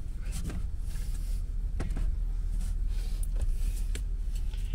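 A steady low rumble with a few light clicks and taps from a new Renogy inverter and its small fittings being handled.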